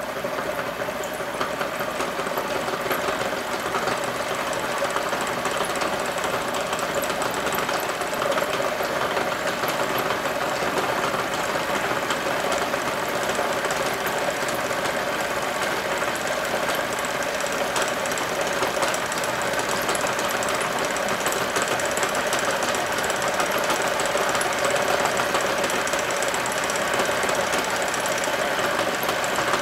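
Motor-driven coil winding machine running steadily, winding fine number 40 copper wire onto a radio transformer bobbin.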